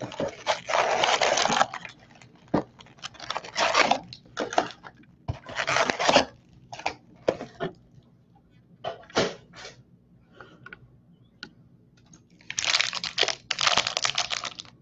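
Foil trading-card pack wrappers crinkling and tearing as packs are handled and opened, in irregular bursts, loudest about a second in and again near the end.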